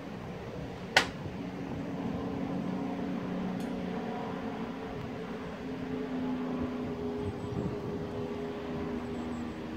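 A steady machine-like hum with a few drifting tones over a noisy background, and one sharp click about a second in.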